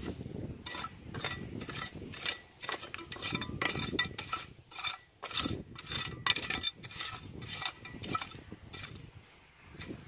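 Small metal hand rake scraping and clinking against stones and shells in a rock crevice while digging for clams, in quick irregular strokes with brief pauses.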